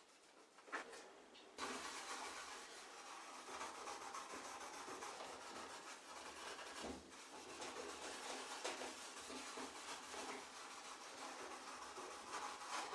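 Abrasive rubbing on the washing machine's sheet-metal frame, as in sanding away rust: a continuous rough scrubbing that starts abruptly about a second and a half in.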